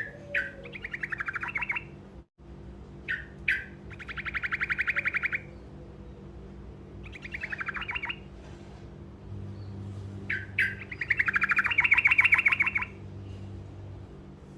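A truco (saffron finch) singing short rolled trills: four phrases, each opening with one or two sharp chips and running into a fast, buzzy trill. A low steady hum runs underneath, and the sound drops out for an instant about two seconds in.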